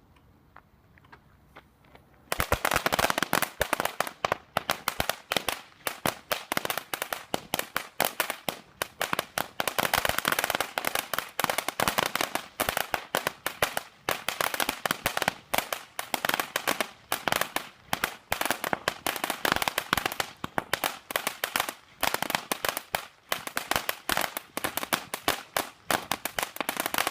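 Category 1 firecrackers going off in a long, rapid string of small sharp bangs, many a second, starting about two seconds in and running on without a break.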